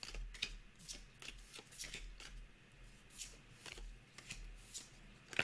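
Pokémon trading cards handled one after another: a string of soft flicks and slides of card against card, two or three a second, irregularly spaced.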